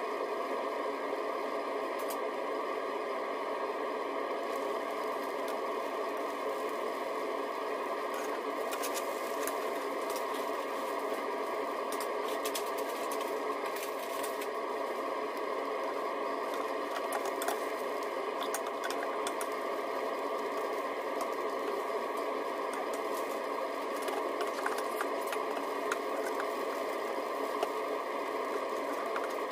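Sandwich frying in a nonstick pan: a steady gentle sizzle with scattered small crackles and clicks.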